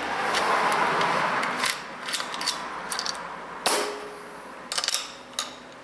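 Metal scraping and clicking as a thread chaser is worked through the stripped thread of a mobility scooter's armrest adjuster. A rasping scrape for the first couple of seconds, then a run of sharp metal clicks, the loudest a little past halfway with a brief ring.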